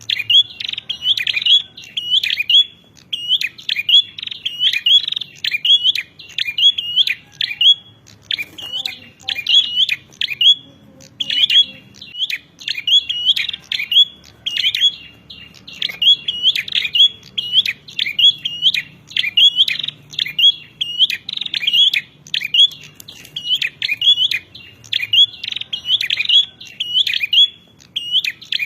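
Prenjak (bar-winged prinia) calling in a fast, repeated chatter of sharp, high chirps, thinning briefly about nine seconds in before picking up again: the prenjak fighting call used as a tutor recording.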